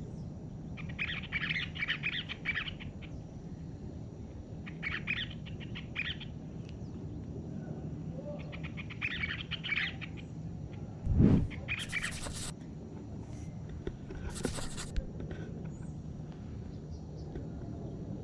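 Two small birds singing in several bouts of rapid high chirping twitters a few seconds apart, over a steady low background hum. About eleven seconds in there is a brief, loud, low thump.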